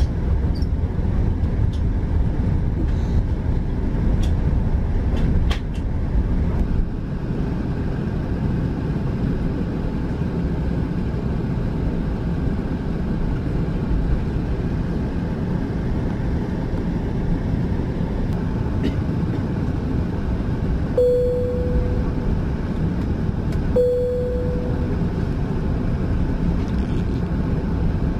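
Cabin noise of a British Airways Airbus A380 taxiing, its Rolls-Royce Trent 900 engines at low thrust: a steady low rumble, with a few faint clicks in the first seconds and two short mid-pitched tones about three seconds apart near the end.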